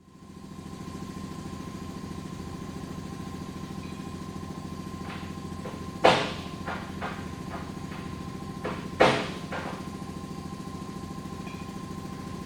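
Auto repair shop ambience: an air compressor running with a steady, even pulse and a thin steady whine. Two loud clanks that ring briefly, about six and nine seconds in, and a few lighter knocks come from tools being handled.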